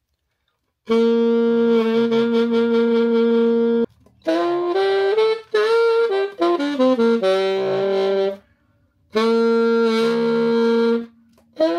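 Saxophone played with a growl, the player voicing in his throat as if talking while he blows, which gives the tone its rough buzz. A long held note, then a run of falling notes, then another held note.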